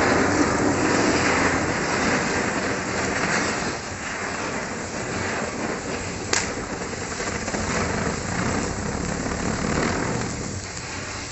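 Firework fountains spraying sparks with a steady hiss, set off along a burning chain of matchsticks. There is one sharp crack about six seconds in. The hiss eases a little after about four seconds, swells again near the end and then starts to fade.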